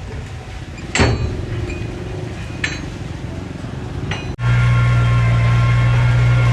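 Diesel engine of heavy earthmoving machinery running, with a loud metallic clank about a second in and two lighter clanks later. About four seconds in the sound cuts abruptly to a louder, steady engine drone.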